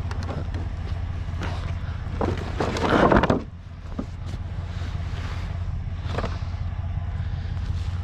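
Vehicle engine idling with a steady low hum. A louder rough rushing noise rises about two seconds in and cuts off at about three and a half seconds, with a few light clicks.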